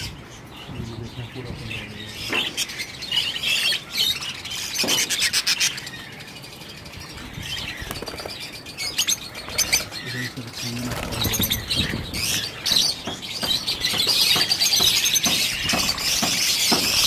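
A cage full of budgerigars chattering and chirping, many birds at once, with scattered sharp calls; the chatter grows denser and louder over the last few seconds.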